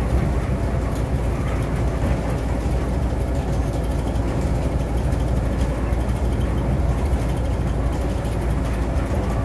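A bus cruising at freeway speed, heard from inside the cabin: a steady low engine drone mixed with road and tyre noise.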